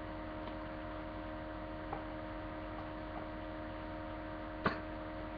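Steady electrical mains hum picked up by a webcam microphone, several constant tones over a faint hiss. There are a couple of faint ticks, and a single sharp click near the end as something is handled.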